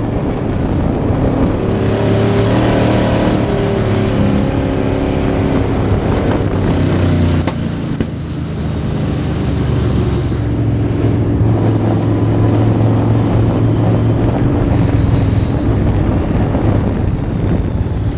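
Dirt-track Sportsman race car's engine heard from inside the cockpit, running hard at high revs. About eight seconds in it eases off briefly, then pulls back up to full power.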